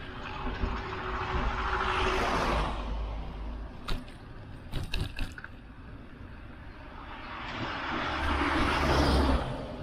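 Two motor vehicles passing close by, one after the other: the first swells up and fades about two seconds in, the second near the end. A few sharp clicks in between.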